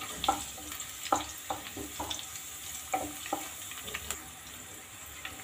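Chopped garlic and green chillies sizzling in hot oil in a nonstick kadhai while a wooden spatula stirs them, scraping and knocking lightly against the pan several times.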